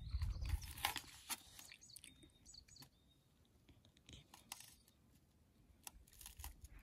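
Faint scattered clicks and taps of handling a plastic food pack, wooden chopsticks and a thermos cup, with a brief low rumble in the first half second.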